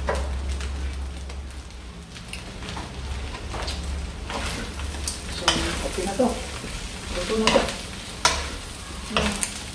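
Chopped pork and tofu sizzling in a nonstick wok while a wooden spatula stirs and turns it. From about halfway through, the spatula scrapes and clacks against the pan several times.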